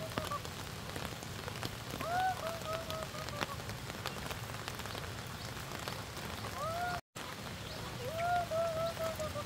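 Steady patter of rain, with a bird calling three times over it: each call one rising-and-falling note followed by a quick run of short notes at the same pitch.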